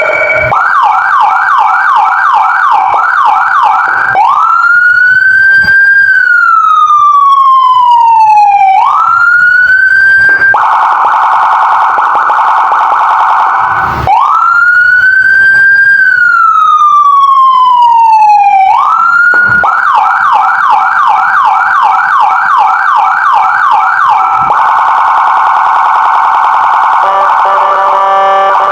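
G-One Dozzer D6 electronic siren module running through its tones: a fast yelp of quick rising sweeps, about three a second, then a slow wail that rises and falls, then a rapid steady warble. The cycle repeats, and near the end it switches to a chopped, stuttering pattern.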